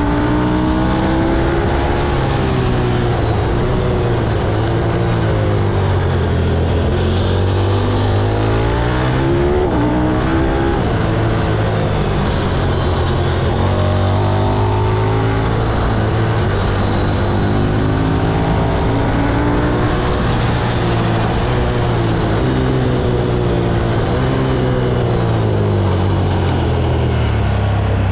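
KTM 890 Duke's parallel-twin engine at full effort, the revs climbing and falling again and again as the bike accelerates hard, shifts and brakes into the bends of a rally special stage.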